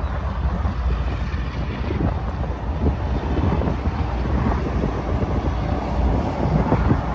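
Union Pacific intermodal freight train's cars rolling past: a steady low rumble of steel wheels on the rails with scattered knocks, mixed with wind on the microphone.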